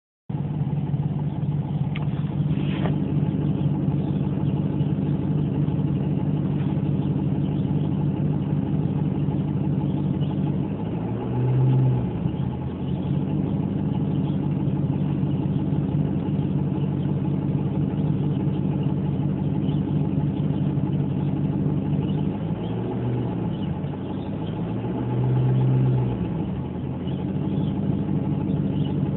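Ford Mustang engine idling steadily, lifted briefly in speed twice, once about eleven seconds in and again about twenty-five seconds in. The owner finds the engine sound weird, with no diagnosis given.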